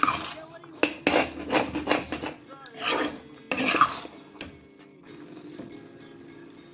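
Steel ladle scraping and knocking against a black iron kadai while stirring thick apple halwa, in quick repeated strokes. The strokes stop about four and a half seconds in.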